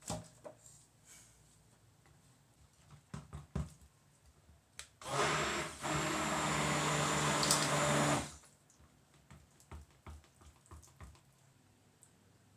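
Handheld stick blender running in a plastic jug of cold process soap batter for about three seconds, with a brief dip just after it starts. Quieter clicks and knocks of handling before and after.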